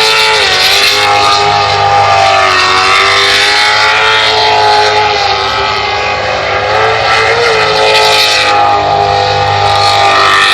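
Sprint boat's Chevy 355 small-block V8 running loud under throttle, its pitch rising and falling repeatedly as it revs up and eases off, dipping lowest about halfway through.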